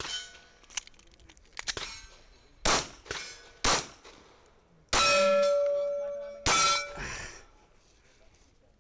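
Four 9mm shots from a Glock 19 pistol, about one to one and a half seconds apart, with steel plate targets clanging and ringing as they are hit. One plate rings on a steady tone for about a second and a half after the third shot. Fainter sharp knocks come in the first two seconds.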